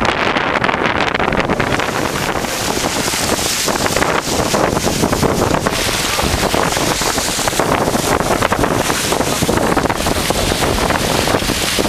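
Wind buffeting the microphone on a sailboat under way, loud and gusting, with water rushing past the hull beneath it.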